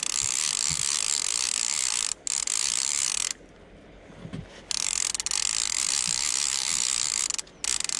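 Click-and-pawl check of a salmon fly reel ratcheting as line is wound in on a hooked small sea trout. It comes in spells of about three seconds with short pauses between the winds.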